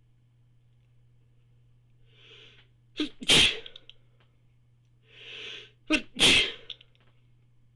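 A person sneezing twice, about three seconds apart, each loud sneeze preceded by an audible drawn-in breath.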